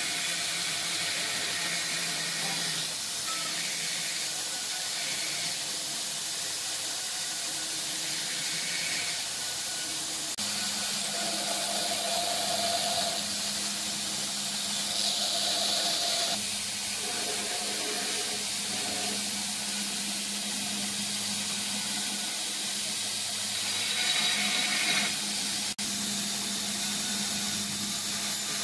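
Belt grinder running with a 440C steel knife blade held against the abrasive belt: a steady grinding hiss that grows louder several times as the blade is pressed on, over a low motor hum.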